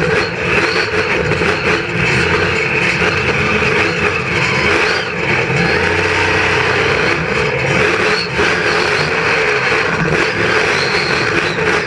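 Monster truck engine running hard, loud and continuous with small rises and dips in revs, heard from inside the cab.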